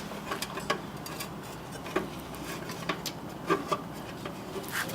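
Light rubbing and scraping with scattered small taps and clicks as parts are handled and marked during hand work on a battery mount.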